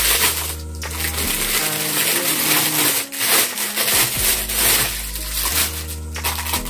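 Clear plastic packaging bag crinkling and rustling as a shoe is pulled out of it and the wrapping handled, with several sharper crackles. Background music with steady bass notes plays underneath.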